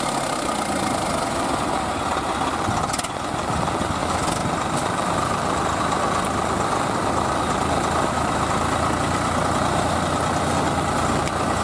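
Diesel tractor engines running steadily under load as a line of tractors hauls through deep mud.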